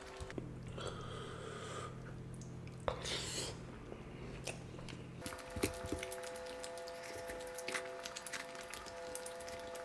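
Close-up eating sounds: chewing and wet squishing of rice and curry, with scattered small clicks. A steady background hum runs underneath and shifts in pitch about halfway through.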